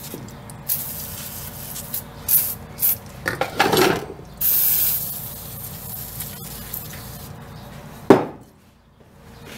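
An aerosol can of PB Blaster penetrating oil hissing in several short sprays and then one longer spray about halfway through, soaking a four-jaw lathe chuck to free it up. A single sharp knock comes near the end.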